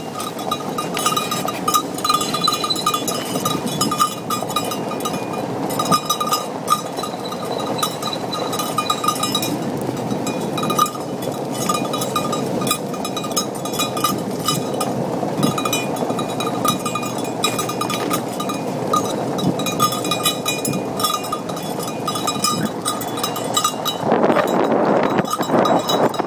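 Steady rumble of an ATV's tyres rolling along a dirt forest track as a team of huskies pulls it, with a high metallic ringing that pulses rapidly and unevenly through it. Louder and windier for the last couple of seconds.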